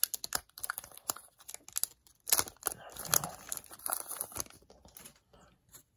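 Hockey trading-card pack wrapper being torn open and crinkled, with irregular crackling that thins out near the end.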